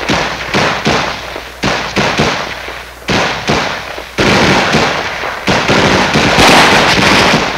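M16A1 rifles firing: separate sharp shots for the first few seconds, then long rapid automatic bursts from about four seconds in.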